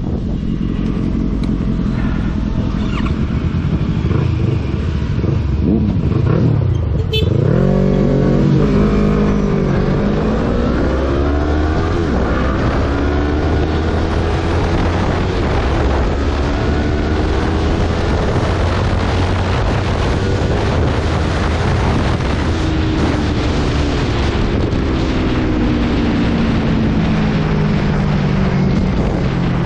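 Sport motorcycle engine pulling away and accelerating, its revs climbing and dropping back repeatedly as it goes up through the gears, over a steady rush of wind noise.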